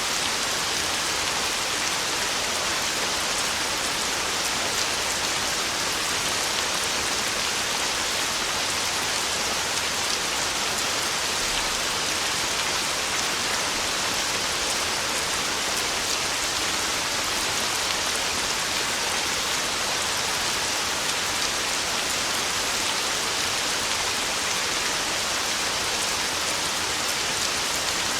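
Heavy rain on a tin roof, falling steadily: an even hiss with a fine patter of drops and no change in strength.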